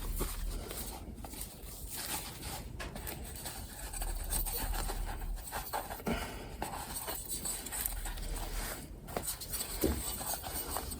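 Handling noise from a new wick being worked into a kerosene heater's wick holder: soft rustling and scraping, with a few light knocks scattered through.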